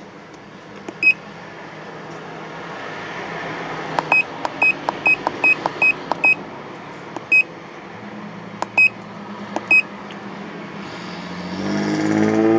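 Key-press beeps from a MaxiDiag Elite handheld scan tool as its menu buttons are pressed: one beep about a second in, a quick run of about eight beeps, then a few more spaced out. Near the end a louder noise with a shifting pitch swells up.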